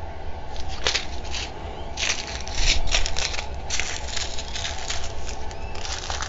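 Small plastic zip bags of diamond painting drills crinkling as they are handled, in irregular bursts, loudest about two to four seconds in.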